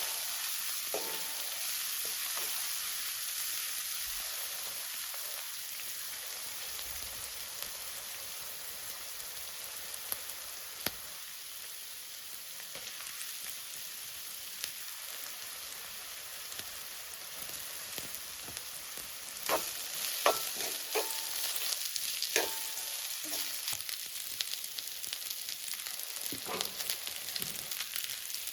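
Food sizzling steadily in a hot pan. Past the middle there is a cluster of sharp knocks, and again near the end, as a metal utensil stirs and strikes the pan, which rings briefly.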